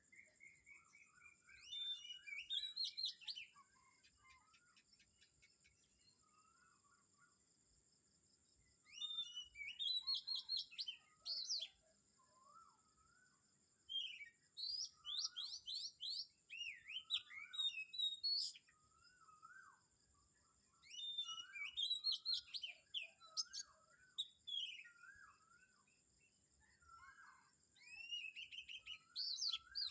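Wild birds singing. Song phrases of quick chirps and whistled notes come in bursts every few seconds, with quiet gaps between them. A faint steady high-pitched tone lies underneath.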